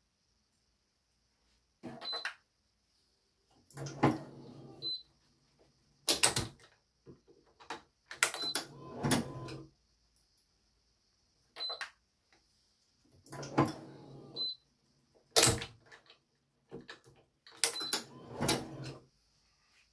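Badminton racket being strung on a stringing machine: a series of separate clicks and knocks from the clamps and string handling, some with a short low hum, coming every one to two seconds.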